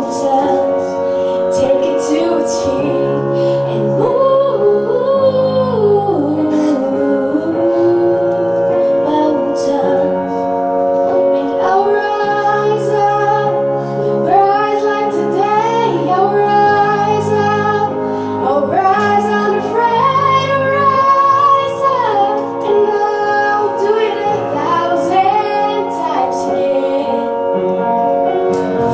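A teenage girl singing a song into a handheld microphone, amplified through a PA, over instrumental accompaniment of sustained chords, a bass line and light ticking percussion.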